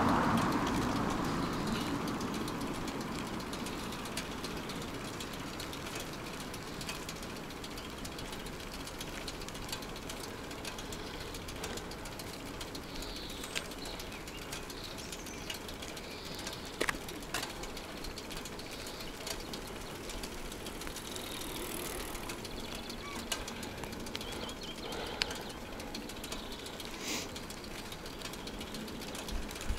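Street sound while riding a bicycle: a car passing and fading away in the first few seconds, then a steady rush of wind and road noise with scattered clicks and rattles from the bike. Faint bird chirps come through about halfway.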